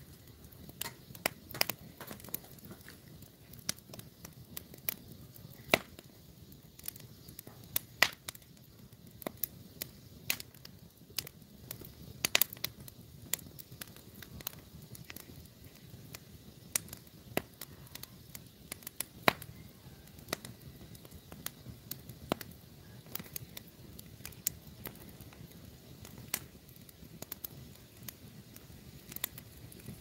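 Wood fire of sticks and split logs crackling and popping in a cinder-block stove: a steady scatter of small irregular pops, with a few louder snaps now and then.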